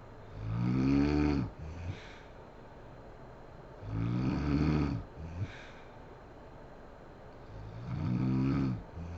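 A sleeping woman snoring: three long snores about four seconds apart, each dropping in pitch at its end and followed by a short, softer breath sound.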